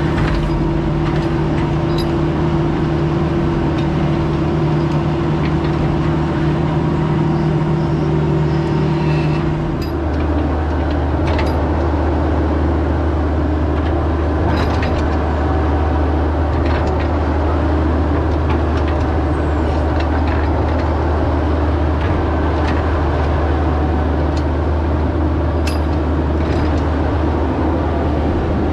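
Bobcat E26 mini excavator's diesel engine running steadily under digging load, heard from inside the cab, with scattered clicks and knocks as the bucket works through rocky dirt. About ten seconds in the engine note shifts lower.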